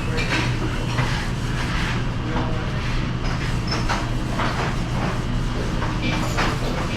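Commercial kitchen dish-room noise: a steady low machine hum under repeated short clatters and knocks of dishes being handled.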